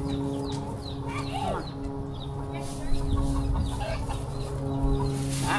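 Chickens clucking, with short high chirping calls, over the steady hum of an idling engine.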